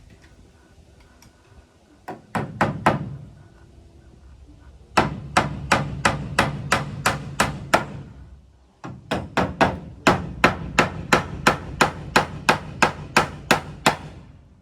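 Claw hammer driving nails into wood, in three runs of quick, even strikes at about four a second: a short run, then two long runs of a dozen or more blows each.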